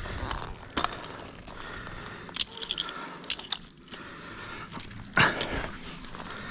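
A tree climber's gear scraping and knocking against tree bark: a few sharp cracks and scrapes, the loudest and longest about five seconds in.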